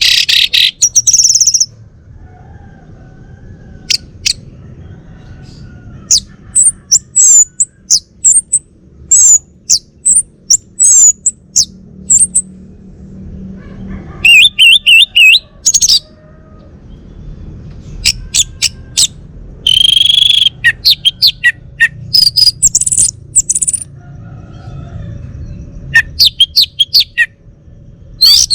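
Male orange-headed thrush singing: loud phrases of quick, varied high-pitched notes and trills, separated by pauses of a few seconds.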